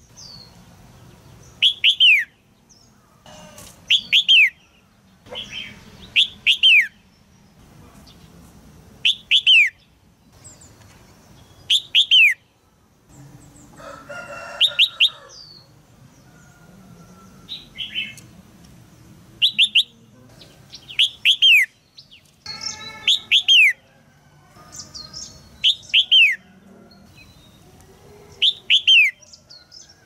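Female red-whiskered bulbul giving sharp, high 'jiak' calls. Each call is a quick downward-sweeping note, mostly in pairs or threes, repeated about every two seconds. These are the female's calls used to stir young males into song.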